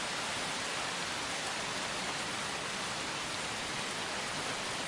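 Steady heavy rain falling: an even, unbroken hiss.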